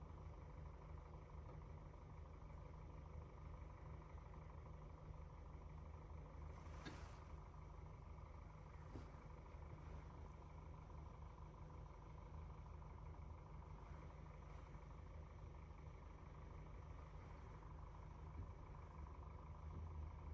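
Mack Granite truck's diesel engine idling as a faint, low, steady hum, with a single light click about seven seconds in.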